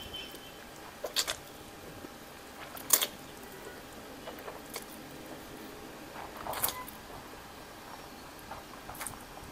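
Close mouth sounds of a person eating instant noodles: slurping and chewing, with a few short wet clicks and smacks, the sharpest about three seconds in.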